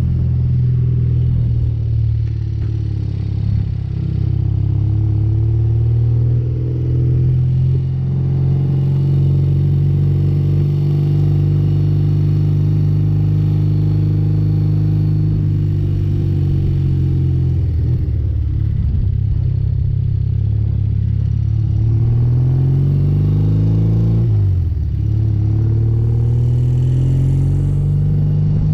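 1977 BMW R60/7's air-cooled flat-twin engine running under way at a steady pitch. About 22 seconds in, the revs climb, then drop sharply around 24 seconds in.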